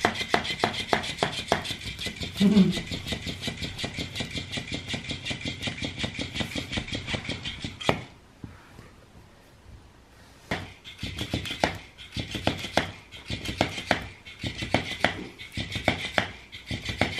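Motorised flopping fish cat toy running, its motor whirring as its tail slaps the wooden floor in a fast, even rhythm of several slaps a second. It stops about eight seconds in, then starts flapping again about two seconds later, less evenly.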